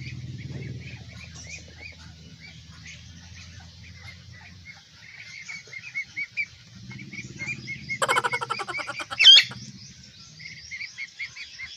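Ducklings peeping: a steady run of short, high chirps, several a second, over a faint low hum. About 8 s in comes a louder rasping burst, then one sharp rising call, the loudest sound.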